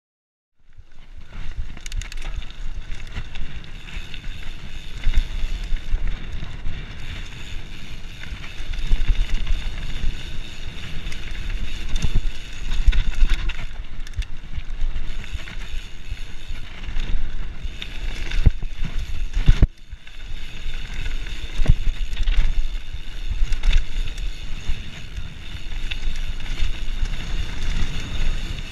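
A Specialized Stumpjumper FSR Camber full-suspension mountain bike ridden fast on a dirt trail, heard through a handlebar-mounted camera. Wind buffets the microphone, the tyres rush over the dirt, and the bike rattles and knocks over bumps. The sound cuts in suddenly about half a second in.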